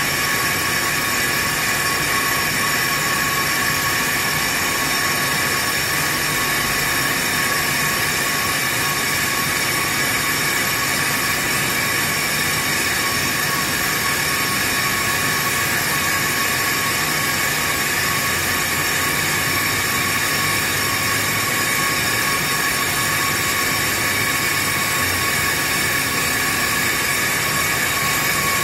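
Pro-Cut on-car brake lathe running, its electric motor turning a Ford F-250's hub and brake rotor while the cutting tips machine the rotor faces. A steady, unchanging whine with several high ringing tones.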